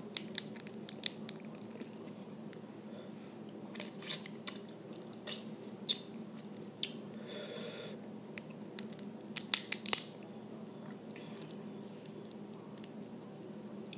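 Close-up eating of small blue crabs: shell snapping and crackling as pieces are pulled apart, with chewing, lip smacks and wet sucking at the meat. Sharp clicks come scattered throughout, thickest around four to six seconds in and again near ten seconds, with a short hiss of sucking about seven and a half seconds in.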